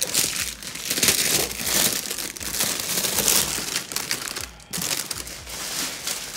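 Cardboard box and its packaging being handled and opened, with continuous crinkling and rustling and a brief pause about two-thirds of the way through.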